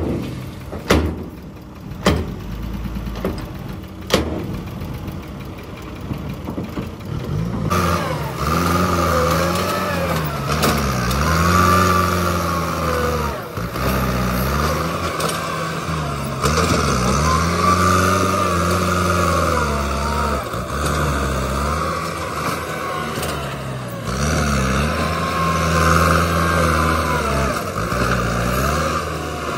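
Dump truck tipping a load of rocky soil, with a few sharp knocks of rocks falling over a low engine hum. About eight seconds in it changes to a farm tractor pushing soil with a front blade, its engine working under load, the pitch rising and falling again and again.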